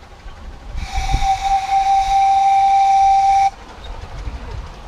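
Miniature steam locomotive's whistle blowing one long steady note of about two and a half seconds, then cut off sharply.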